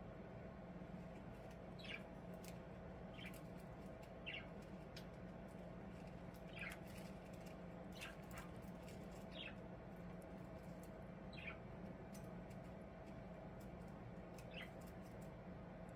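Budgies giving short, faint chirps that fall in pitch, about eight of them every second or two, with a few light clicks and a steady low hum underneath.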